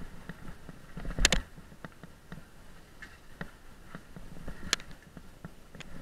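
Irregular clatter and rattling of a bike jolting over a rough dirt trail, with a sharp knock about a second in and another near five seconds.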